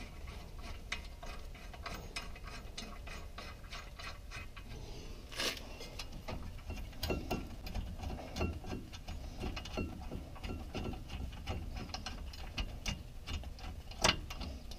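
Ratchet wrench clicking in quick, fine ticks as a caliper bolt is run into the brake caliper, with a few sharper metal knocks from the tools against the caliper.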